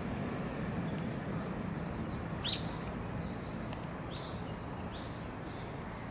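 A bird chirping a few times, short high calls with the loudest one rising, over a steady low background hum.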